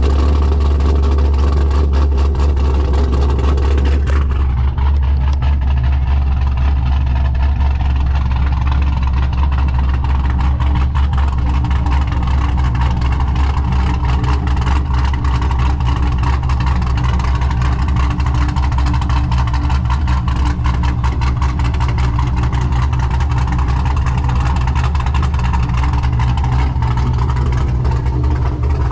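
A car engine idling steadily close by, a deep, even hum with no revving; about four seconds in, the higher part of the sound grows duller.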